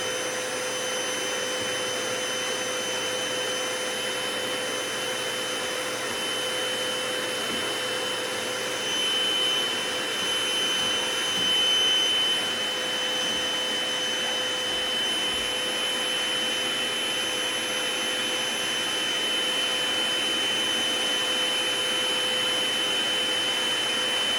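Vacuum cleaner running steadily, a motor whine over a rush of air, louder for a few seconds around ten seconds in.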